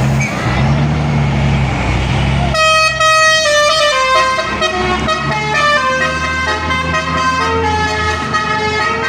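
A heavy truck's diesel engine running. About two and a half seconds in, a 'telolet' multi-tone horn starts playing a tune of stepped notes over it.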